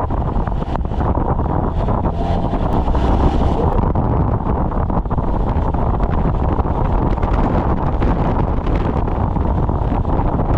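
Wind rushing over the microphone of a moving motorcycle, over a steady low rumble of engine and road noise.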